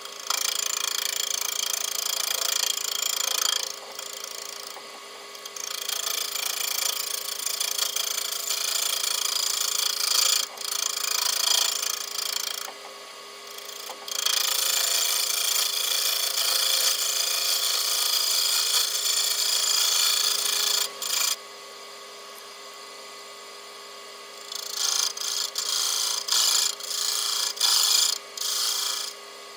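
A lathe facing the inlet of a cast aluminium Holset H1C compressor housing. The tool makes a loud, hissy cutting noise in three long passes with short breaks between them, then several short cuts near the end, over the steady hum of the spinning lathe.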